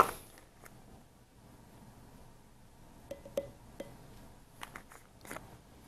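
Light clicks and taps of a small spice jar being handled and shaken as paprika goes into a glass jar of salad dressing. It is quiet for about the first three seconds, then comes a scatter of short clicks, a few close together.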